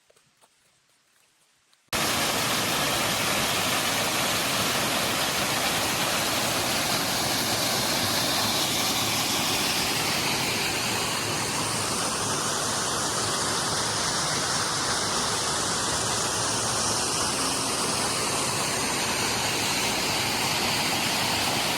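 Faint ticking for about two seconds, then a sudden cut to loud, steady rushing water, as of a waterfall or fast stream.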